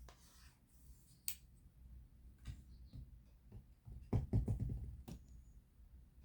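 Hands handling small objects on a desk: scattered light clicks, a sharp click just over a second in, and a louder run of low knocks and rustling about four seconds in.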